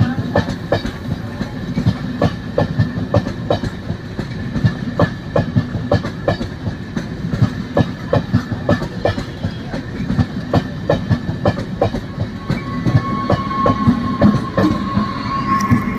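MEMU electric multiple-unit train running along the track, its wheels clicking over rail joints about two to three times a second over a steady rumble, with a steady high tone that grows stronger near the end.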